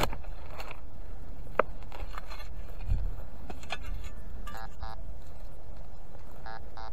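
Garrett ACE 200i metal detector signalling a target: two short electronic beeps from its speaker a little past the middle, then two more near the end, as the coil is swept back and forth over something buried. A sharp click comes about a second and a half in, over a steady low rumble.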